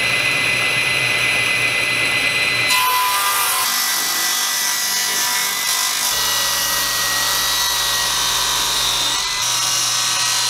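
Table saw running and ripping a long oak board along its length, a steady saw whine through the cut. The tone shifts abruptly a few times.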